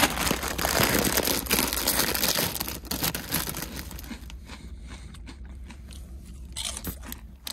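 Foil chip bag of Flamin' Hot Cheetos crinkling as a hand digs into it, with the chips crunching; loudest over the first few seconds, then thinning to scattered rustles.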